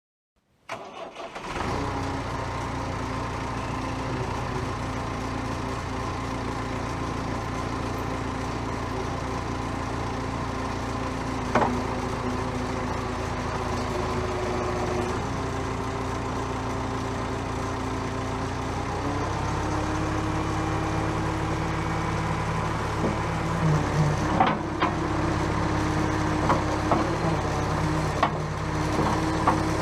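JCB backhoe's diesel engine running steadily, stepping up in engine speed about two-thirds of the way through, with a few sharp knocks and clanks near the end.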